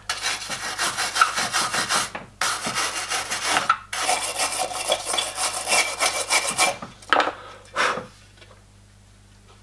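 Rapid back-and-forth scrubbing of a hand-held abrasive pad over a soldered seam on thin brass sheet. It breaks off briefly about two seconds in, and stops after a couple of last strokes about seven to eight seconds in.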